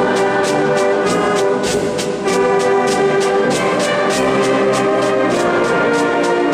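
Wind band playing a slow Holy Week march. Trombones and other brass hold loud chords over a steady percussion beat of about three strokes a second, with a brief drop in the playing about two seconds in.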